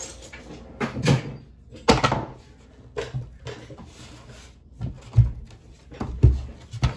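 Handling noise while an Allen wrench set is fetched from a toolbox: about five separate knocks and clunks of the toolbox and tools, the set being put down on a wooden table near the end.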